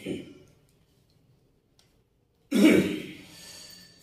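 A man coughs once, loudly, a little past halfway in, the cough trailing off over about a second; a short vocal sound comes right at the start.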